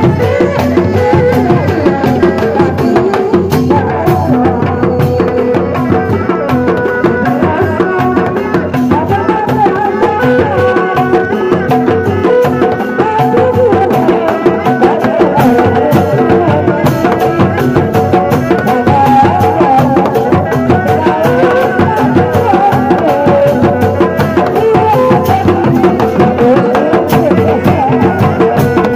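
Sundanese dog-dog drum ensemble playing: several hand-beaten drums in a fast, steady interlocking rhythm, with a wavering melody line running above the drums.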